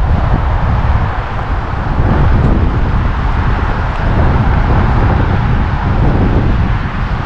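Wind blowing across a GoPro's microphone: a loud, steady rumble with an even hiss above it.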